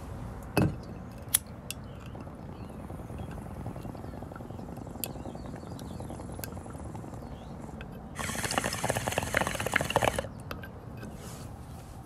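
Water bubbling in a glass bong as smoke is drawn through it, a rapid run of bubbling lasting about two seconds near the end. A couple of sharp clicks come about a second in.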